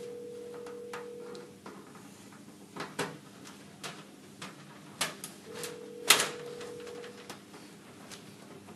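Small screwdriver working a screw on a plastic bar connector (terminal strip) while wires are handled: scattered light clicks and taps, the sharpest about six seconds in. A faint steady whine comes and goes twice, about a second and a half each time.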